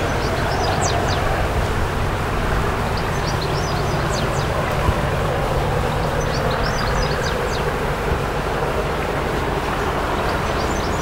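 Distant English Electric Class 37 diesel locomotive approaching with its V12 engine working, a steady low rumble. Small birds chirp in short high trills about every three seconds over it.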